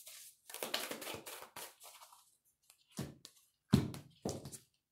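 A deck of tarot cards being shuffled by hand, a quick papery riffling for about two seconds, followed by three soft thumps as the cards are knocked or set down.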